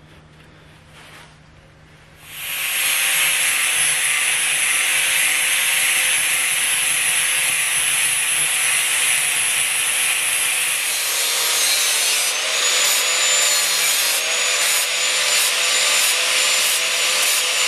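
Angle grinder with a flap disc starting up about two seconds in and grinding paint off an oxygen cylinder: a steady high whine over a harsh scrubbing noise. In the later part the sound swells and dips about twice a second.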